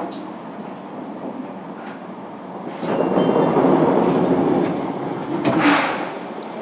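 Fukuoka City Subway 1000 series electric train heard from on board as it runs into the station. The running noise swells loudly about three seconds in, with faint high squealing tones. A short, sharp hiss comes near the end.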